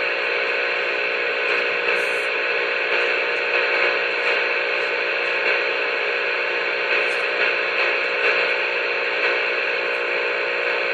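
Steady hiss of static from a CB radio's speaker, with a faint steady hum running under it.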